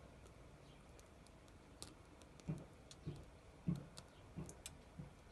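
Faint crackling from a burning black candle as the ritual powder sprinkled on it burns in the flame: scattered sharp ticks, with soft pops coming more often from about two seconds in.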